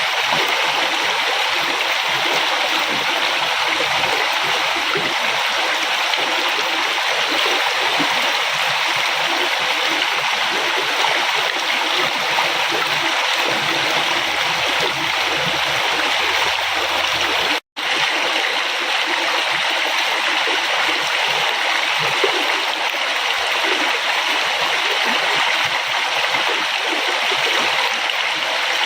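River water flowing: a steady rush of moving water, with one split-second silent gap about two-thirds of the way through.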